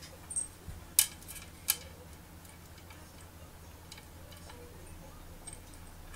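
A girl gulping water from a drinking glass: a few sharp swallowing clicks, the loudest about one second in and again just under two seconds in, then softer ones later. A faint steady air-conditioner hum runs underneath.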